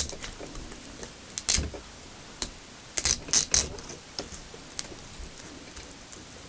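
Sharp clicks and taps of hands handling a small plastic LiPo voltage checker, pressing it onto double-sided tape on a quadcopter's battery strap. The loudest clicks come in a quick cluster of three about three seconds in.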